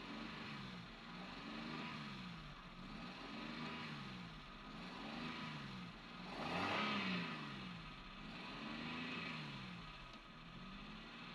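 Car engine revved again and again as the accelerator pedal is pumped, its pitch rising and falling in regular swells about every second and a half. One rev about two-thirds of the way through is louder than the rest.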